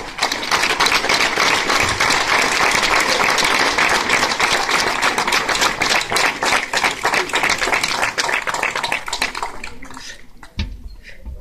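A group of people applauding, many hands clapping in a dense, even patter that dies away near the end.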